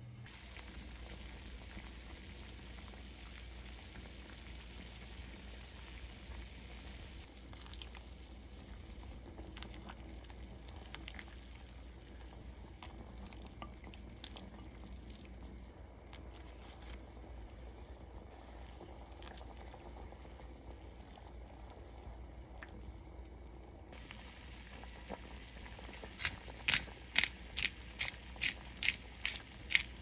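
Pot of Korean beef and radish soup bubbling at a steady boil. Near the end comes a quick regular run of sharp, crunchy clicks, about two a second, louder than the boiling.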